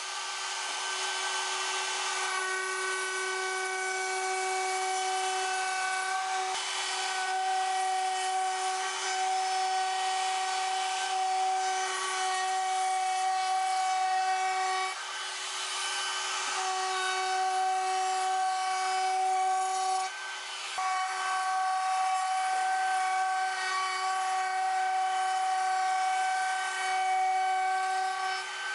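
Compact hand-held router running with a steady high whine while its bit cuts along the edge of a pine beam, with a hissing chip noise over it. The sound dips briefly twice, about halfway through and again a few seconds later.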